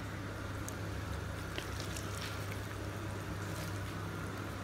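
Steady low hum of background room noise, with a few faint light clicks.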